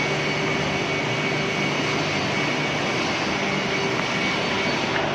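Wood moulding machine running steadily: a loud, even machine noise with a few held tones and no breaks.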